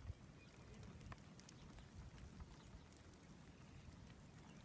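Near silence: a faint low rumble with a few scattered small ticks.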